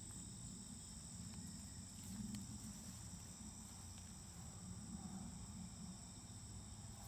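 A steady chorus of crickets: an unbroken high-pitched trill, with faint low rumble underneath.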